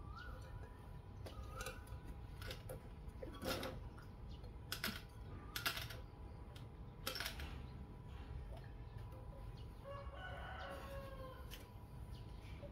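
A rooster crows once, faintly, about ten seconds in. Before it come a few sharp clicks and knocks and short rising chirps, over a steady low rumble.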